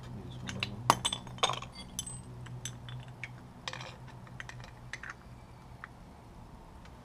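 Sharp metallic clinks and clicks of a screwdriver prying between the old brake pads in a 2000 Honda CBR600 F4's front brake caliper, spreading the pistons back to make room for new pads and rotors. The clicks come in a quick cluster about a second in, then grow scattered and thin out after about five seconds.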